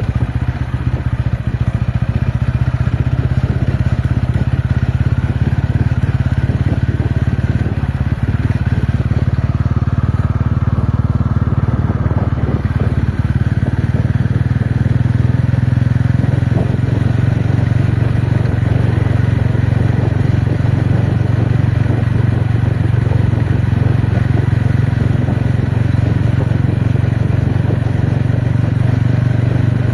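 TVS Ronin motorcycle's single-cylinder engine running steadily while the bike is ridden off-road, a constant low engine note for the whole stretch, a little louder in the second half.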